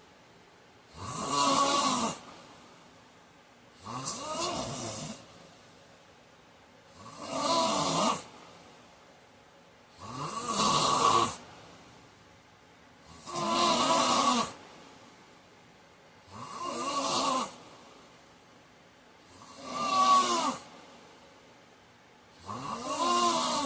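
A man snoring in a steady rhythm: eight snores, one about every three seconds, each a rough pitched rasp about a second long.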